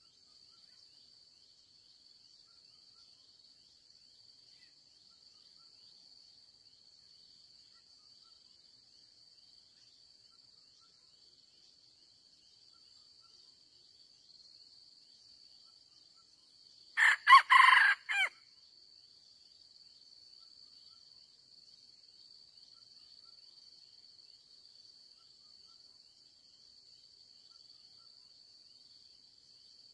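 A red junglefowl rooster crows once about 17 seconds in, a short crow broken into a few parts. A steady, faint, high-pitched insect drone runs underneath.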